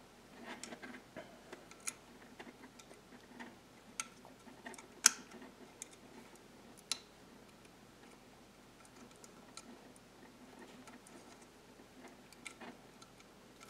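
Scattered small clicks and taps of wire spade connectors and the speaker's plastic frame being handled as the connectors are pushed onto the replacement subwoofer's terminals. The sharpest clicks come about four, five and seven seconds in.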